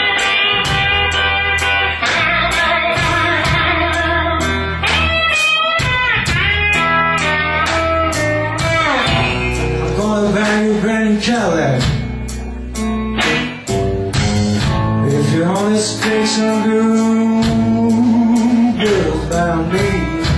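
Live electric blues band playing: an electric guitar takes the lead with bent, sliding notes over bass guitar and drums.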